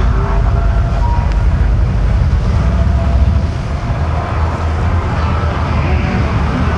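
Steady low rumble of the high-pressure pump engine driving a water-screen fountain, with the hiss of the spray above it.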